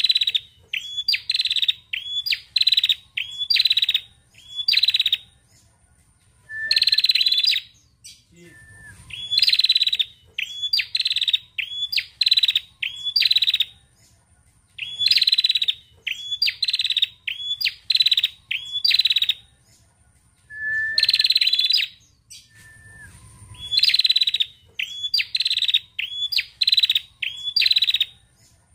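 Female tailorbird calling: quick series of short, high, upward-hooked notes in bursts of several notes, broken by pauses of a second or two.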